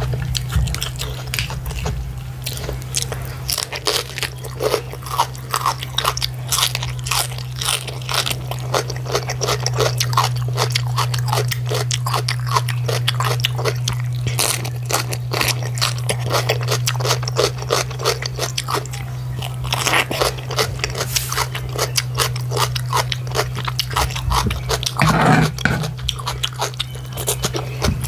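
Close-miked crunching and chewing of raw cabbage leaves: many quick, crisp crunches one after another, over a steady low hum.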